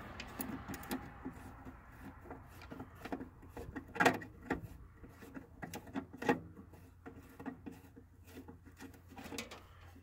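Screwdriver working a screw in a sheet-metal bracket: irregular clicks, scrapes and light metal knocks, the sharpest about four and six seconds in, over a faint steady low hum.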